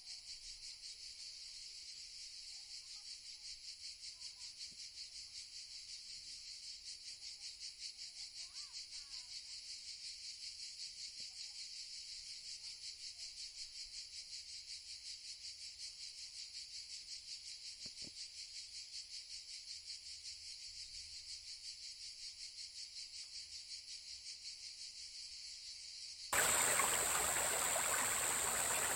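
Steady, high-pitched insect chirring that pulses about four times a second, with a few faint bird chirps in the background. Near the end it cuts abruptly to the louder rush of running water.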